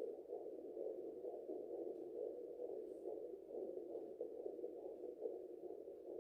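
Handheld fetal doppler's speaker giving a steady, wavering whoosh as the probe picks up sound from the pregnant belly.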